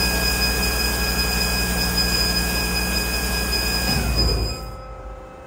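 Amada CTB400 vertical bandsaw running with a steady high whine over a low hum. About four seconds in it shuts down: the pitch drops as it winds down, leaving a much quieter steady hum.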